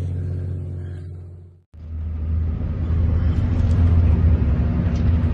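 Fishing boat's engine droning steadily with a low hum; it fades out about a second and a half in, then comes back at once with a rushing noise over it.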